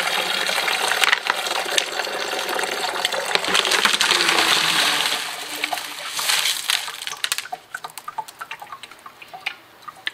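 Thick grey silicon carbide grit slurry pouring from a rock tumbler barrel through a mesh sieve, with clicks of tumbled rocks and ceramic media shifting in it. About seven seconds in the pour tails off into scattered drips and clinks as the last rocks and media drop onto the sieve.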